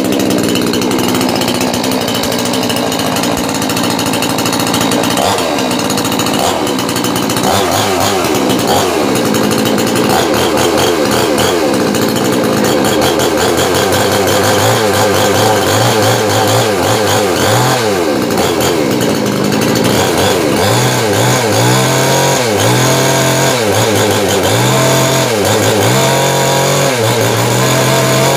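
STIHL-branded two-stroke chainsaw running on a test run after assembly, its engine revved up and down over and over. In the second half the revs rise and fall every second or two.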